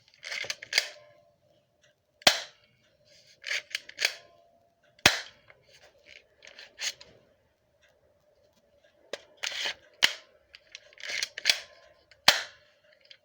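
Airsoft pistol being worked: its slide is pulled back with a short scraping rattle, then the gun snaps off a sharp click, several times a few seconds apart.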